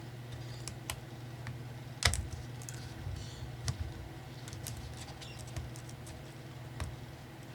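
Small clicks and taps of plastic laptop parts and tools being handled while taking apart a Dell Latitude E6420, with one louder knock about two seconds in. A steady low hum runs underneath.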